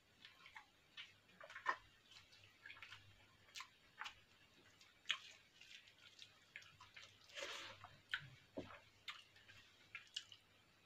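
Faint sounds of eating rice and egg curry by hand: scattered wet clicks and smacks of chewing and of fingers squishing rice on a plate, with a short rustle about seven and a half seconds in.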